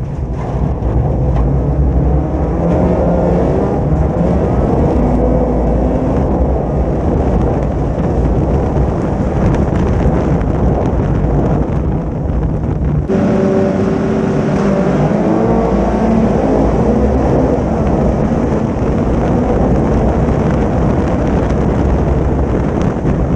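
Folk-race car engines running hard on a wet gravel track, heard from the car's roof with wind and tyre noise. About thirteen seconds in, the sound cuts abruptly to engines revving on the start grid, then the cars pull away at the start.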